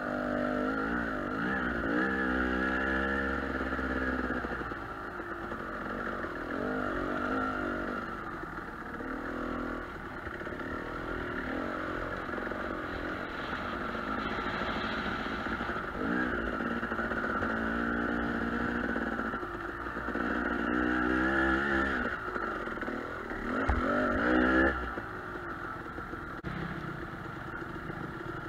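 KTM 300 two-stroke dirt bike engine heard from the rider's seat, revving up and down again and again as the throttle is worked on a rocky climb. The loudest burst of throttle comes near the end.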